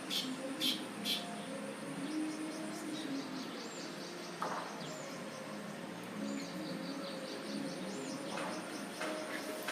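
Sparrows chirping: a few short chirps in the first second, then a run of thin, high chirps repeating through the rest.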